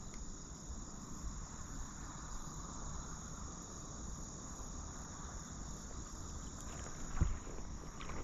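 Steady riverside ambience: an even, high insect drone over a low rumble, with one short knock about seven seconds in.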